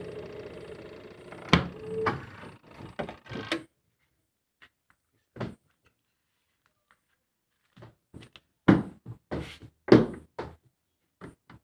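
A washing machine's motor hums steadily and stops about two seconds in. Scattered knocks and clicks follow, like parts of the machine being handled or a lid being shut.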